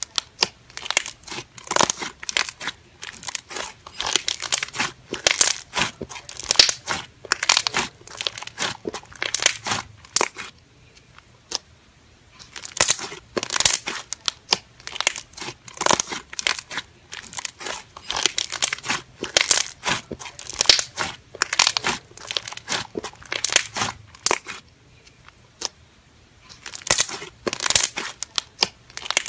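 Thick slime being pressed and squeezed by hand, giving off dense runs of crackling, crinkling pops. The crackling comes in bursts, with short lulls about a third of the way in and again near the end.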